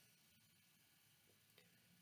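Near silence: a pause in the speech, with only a very faint room tone.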